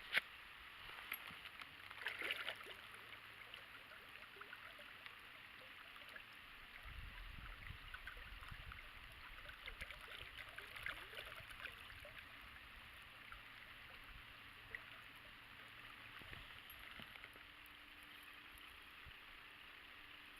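Faint water lapping and gurgling, with scattered small clicks and knocks and a low rumble in the middle.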